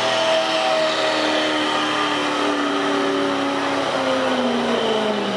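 Gasoline pickup truck engine running hard at high revs under heavy load while dragging a weight-transfer sled. Its pitch sags slowly as the sled's drag builds, then drops steeply near the end as the engine bogs down.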